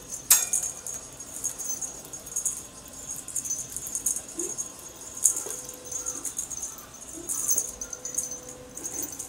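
Small bells on a dangled cat toy jingling in repeated irregular shakes, with a sharp click about a third of a second in.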